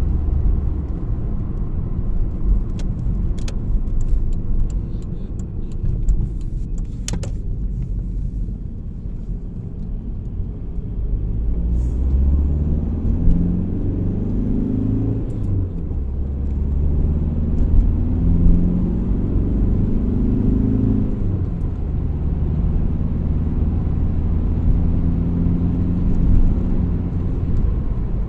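A VW Golf 4's 1.9 TDI diesel engine running while driving: its pitch climbs as the car accelerates, drops twice at gear changes (about halfway and about three quarters through), then climbs again over a steady low road rumble. A few sharp clicks come in the first third.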